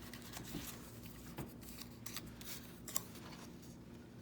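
Paper scraps and ephemera being handled and sorted: soft rustles and scattered light clicks, with a sharper tick about three seconds in, over a faint steady hum.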